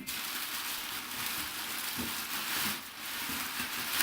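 Steady rustling and crinkling of packing material, as hands search through a box to check it is empty.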